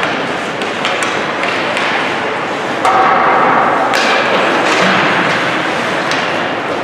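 Ice hockey play in a rink: repeated knocks and thuds of sticks, puck and players against the ice and boards over a steady haze of rink noise.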